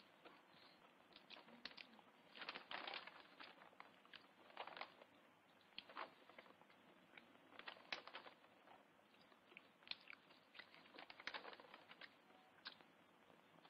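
A man eating beans greedily from a plate with a spoon: quiet, irregular clinks and scrapes of the spoon on the plate, mixed with chewing.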